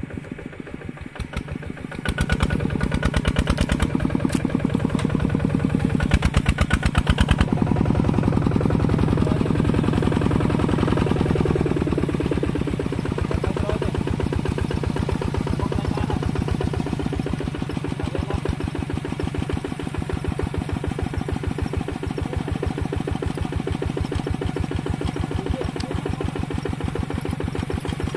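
Two-wheel walking tractor's single-cylinder diesel engine running hard with a fast, even firing beat while the machine is bogged in mud. It gets louder about two seconds in and eases off a little partway through.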